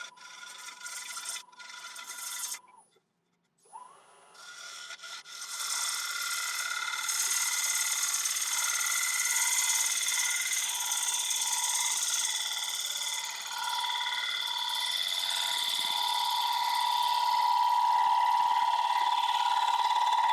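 A turning tool cuts the underside of a spinning Irish yew bowl on a wood lathe, taking off torn grain. A few short scrapes and a brief pause come first; from about five seconds in there is a continuous hissing cut with a steady ringing whine.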